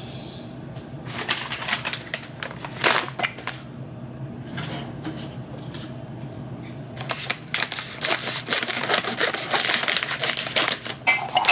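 Crinkly plastic snack bag of rice cakes being handled with scattered crackles and clicks, growing busier as the bag is cut open with scissors near the end.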